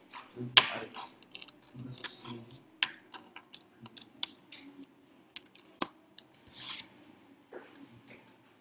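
Scattered sharp clicks and short rustling noises over a faint low hum, heard through a video call's open microphone; the loudest click comes just over half a second in.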